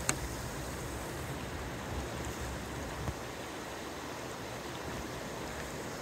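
Steady rushing of river water running beneath snow and ice, with a sharp click at the start and two soft bumps about two and three seconds in.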